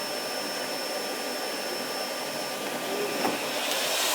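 Vacuum cleaner running steadily, a constant rushing hum with a thin high whine over it, growing a little louder near the end.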